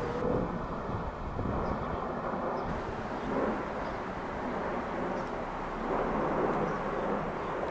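Twin-engine widebody jet airliner passing low overhead on its landing approach, a steady jet rumble.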